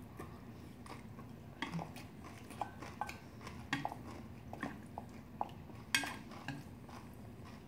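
A spoon and chopsticks tapping and scraping against stainless steel bowls while bibimbap is mixed and noodles are lifted: scattered light clinks at an uneven pace, with a sharper one about six seconds in.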